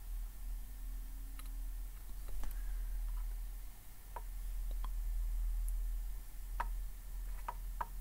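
Small, sharp clicks and ticks of hand tools touching a phone circuit board, scattered irregularly, with a few of the clearest near the end, over a steady low electrical hum.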